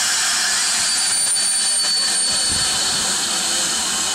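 Steady, loud hiss of steam escaping from BR Standard Class 4 tank locomotive 80080, venting low at the front beside the cylinders, with a faint thin high tone through the first couple of seconds.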